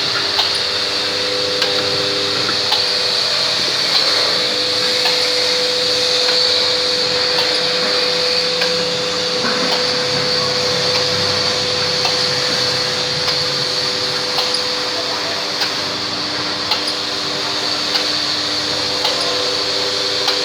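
Automatic sachet packing machine running steadily: a constant motor hum and high hiss, with a sharp click about once a second as it cycles through each sachet.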